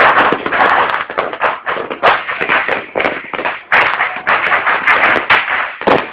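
Loud, dense crackling with many sharp pops packed close together, typical of New Year's firecrackers going off.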